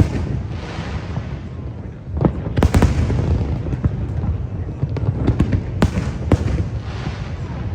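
Aerial fireworks bursting: several sharp bangs, with crackling between them.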